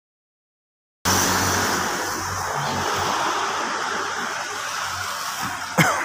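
Silence, then about a second in a steady rushing street ambience with a faint low hum begins abruptly. A brief sharp sound comes near the end.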